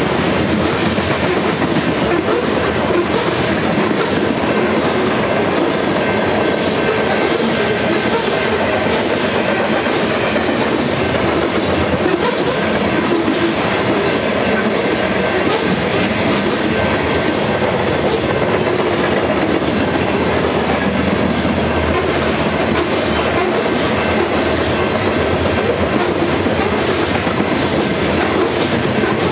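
Loaded covered hopper cars of a long grain freight train rolling past at steady speed, their wheels running on the rails with a continuous, even rumble.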